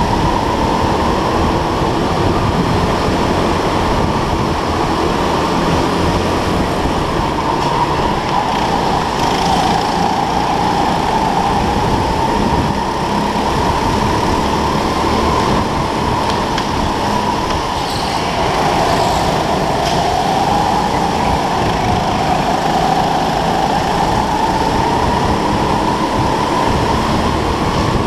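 Onboard sound of an indoor racing go-kart at speed: a steady motor whine that dips and climbs again with speed through the corners, over a rough low rumble.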